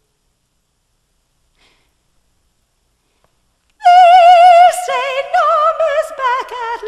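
Silence, then nearly four seconds in a loud, high operatic voice begins singing held notes with wide vibrato, stepping down in pitch.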